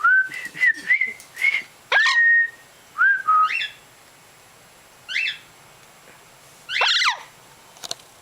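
Blue-fronted Amazon parrot whistling: a quick run of short whistled notes, some gliding up and some down, in the first couple of seconds, then a few spaced notes, the last a sweeping call about seven seconds in.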